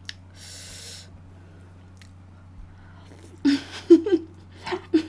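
Close-miked eating sounds. A short breath half a second in, then a run of loud slurps and mouth smacks from about three and a half seconds in, as a piece of spicy braised pork rib is sucked off the chopsticks and into the mouth.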